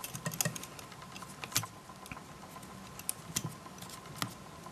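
Irregular small clicks and taps from hands handling a leather camera hand strap and its buckle on the camera body, as the excess strap is threaded through its keeper.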